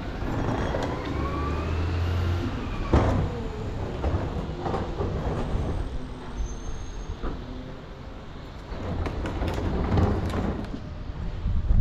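Heavy truck running close by: a low hum under a whine that rises over the first few seconds, then a sharp bang about three seconds in and scattered knocks.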